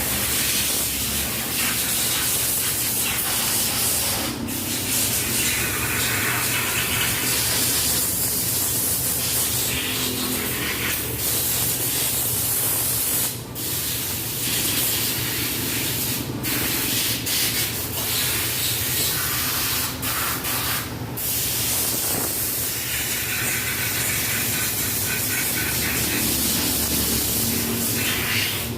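Compressed air hissing steadily from an air hose during a flat tire repair, cutting off briefly a few times, over a steady low hum.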